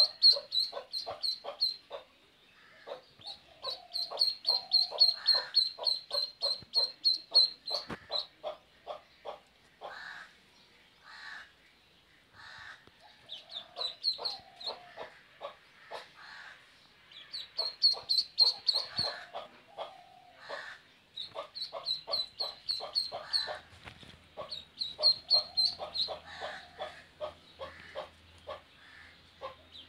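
Duckling peeping in rapid bouts of short, high calls, several a second, with brief pauses between the bouts.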